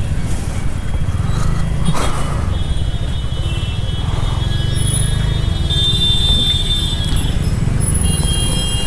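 TVS Ntorq 125 scooter's single-cylinder engine running at crawling speed in a traffic jam, under a steady low rumble. From about two and a half seconds in, thin high steady tones come and go over it.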